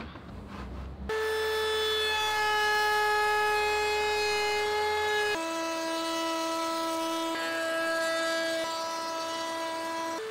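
Makita router running in a small plywood router table, a steady high whine as pieces are fed past the bit. The whine comes in abruptly about a second in and drops to a lower pitch about five seconds in.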